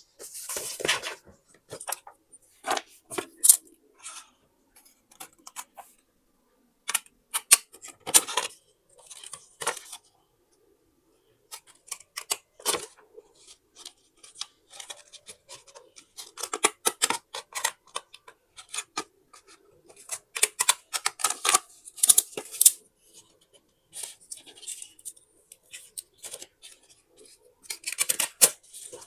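Close-up paper handling for a scrapbook: rustling, sliding and crinkling paper in short irregular bursts with sharp clicks, stopping for about a second near the middle.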